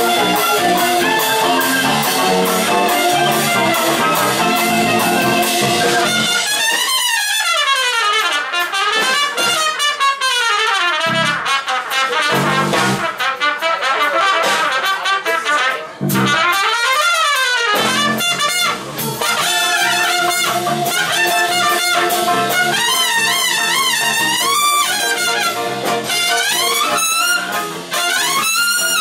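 Live jazz band with drums and keyboard playing. About six seconds in the band drops out for an unaccompanied trumpet solo with bending, sliding phrases. The full band comes back in around eighteen seconds in.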